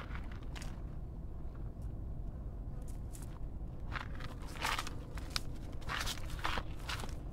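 Footsteps crunching on dry ground outdoors: a few steps, a pause of about three seconds, then a run of steps near the end.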